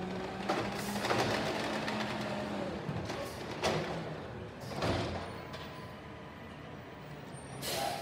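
Automated side-loading garbage truck running while its hydraulic arm lowers an emptied wheeled cart to the curb and lets it go, with several uneven clunks and knocks of the plastic cart and the grabber over a low engine hum.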